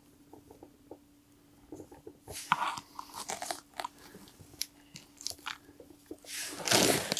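Handling noise of gloved hands working with cord and gear: scattered small clicks, then crinkling and rustling from about two seconds in, with a louder rustle near the end. A faint steady hum runs underneath.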